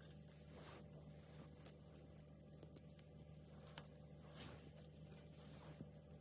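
Near silence: a steady low hum with scattered faint clicks and rustles of small parts being handled, the sharpest click about four seconds in.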